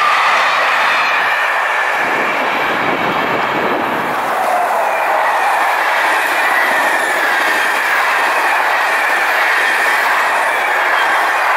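SNCF Corail passenger coaches rolling past at speed: a steady rush of wheels on rail with a thin high ringing tone that wavers in pitch, and a deeper rumble for a moment about two seconds in.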